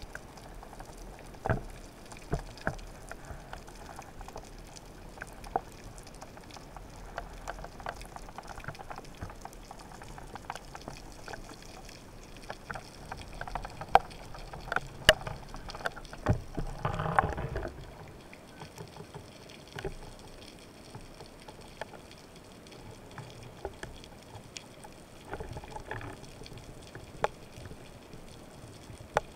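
Underwater sound picked up through a speargun-mounted camera housing: a low watery hiss with scattered sharp clicks and crackles, and a short burst of rushing water about 17 seconds in.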